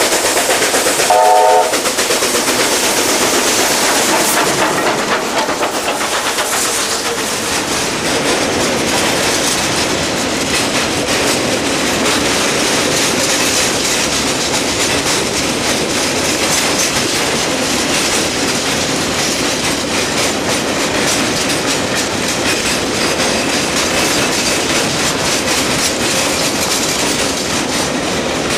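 A Chinese QJ-class steam locomotive passes close, working hard, and sounds a short whistle blast about a second in. After it, a long train of freight wagons rolls past with a steady clatter of wheels over the rail joints.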